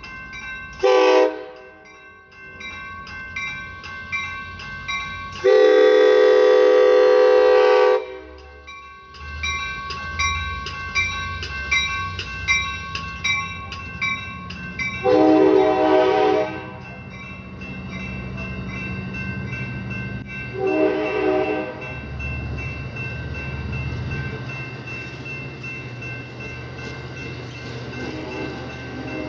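Nathan K5LA five-chime horn on a California Amtrak cab car blowing four blasts: a short one, a long one of about two and a half seconds, one of about a second and a half, and a last short one. A grade-crossing bell rings steadily underneath, and the low rumble of the passing bilevel cars comes in after the long blast.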